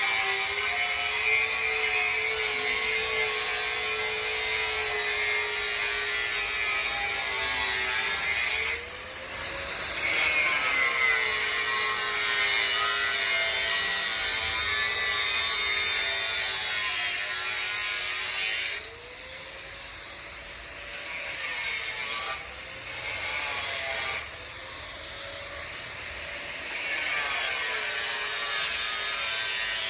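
Handheld electric power tool grinding or cutting metal, its motor whine sagging in pitch as it bears down and rising again as it eases off, over a harsh hiss. It lets up briefly about 9 and 19 seconds in.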